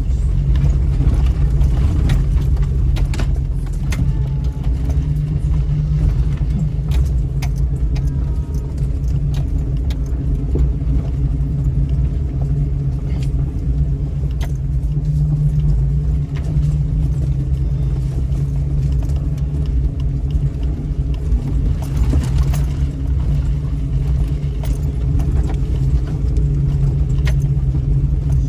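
Lifted 2000 Jeep Cherokee crawling down a rough, rocky dirt trail: a steady low engine and drivetrain drone with scattered rattles and clicks from the body and loose items as it jolts over the ground.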